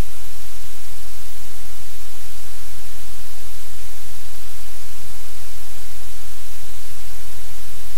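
Loud, steady static hiss with a low hum under it: noise from the live cam's audio feed, with no chewing or other event standing out.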